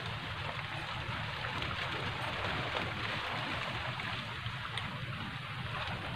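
Steady, soft rushing outdoor background noise with a low hum underneath and no distinct events.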